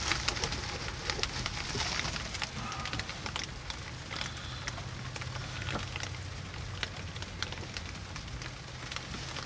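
Wood fire crackling and popping inside a small cast-iron wood stove, freshly loaded with split wood and kindling: irregular sharp ticks and snaps over a steady low hum.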